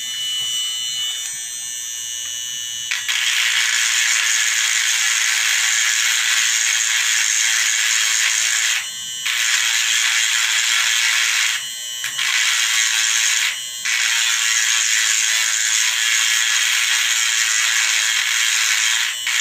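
Small handheld electric rotary tool running and working against a black plastic part. It starts about three seconds in and goes on with a high, hissing whir, cutting out briefly three times.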